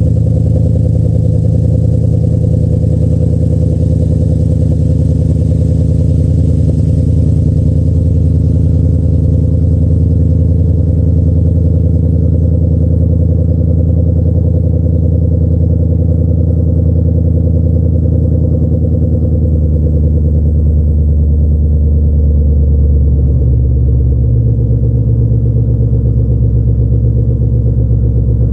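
2011 Ford Mustang GT's 5.0-litre Coyote V8 idling steadily through its stock exhaust with the mufflers deleted: a loud, deep, even burble.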